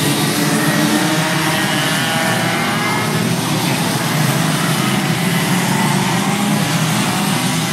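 Several racing karts' two-stroke engines running at speed around the track, their pitch rising and falling as they rev through the corners and pass.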